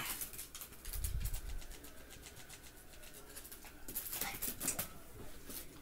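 A miniature Chihuahua and a cat play-fighting on a hardwood floor: low, soft animal sounds about a second in, then a quick run of sharp taps from claws and paws on the wood about four seconds in.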